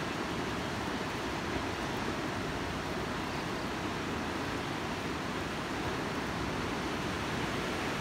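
Steady wash of ocean surf breaking on a reef, an even rushing noise with no separate crashes.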